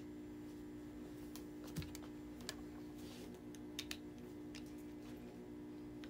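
Nylon bridal illusion tulle being lifted and handled, giving scattered light crackling clicks, over a steady low hum.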